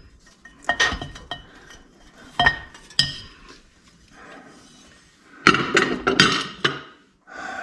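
Metal engine parts and tools clinking and clattering as they are handled during a motorcycle engine teardown. Several separate sharp clinks come in the first three seconds, then a louder run of metal-on-metal clatter about five and a half seconds in.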